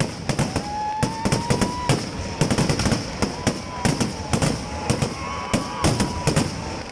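Vedikettu, a Kerala temple fireworks display: a rapid, dense string of loud bangs, several a second, with crackling sparks. A whistling tone is heard over the bangs at times.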